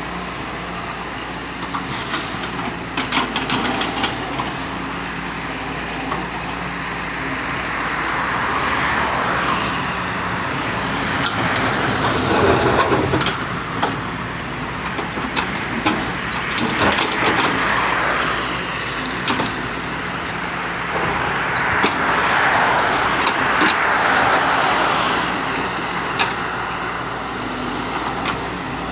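Doosan DX140W wheeled excavator's diesel engine running steadily, swelling several times as it works under load, with scattered sharp knocks.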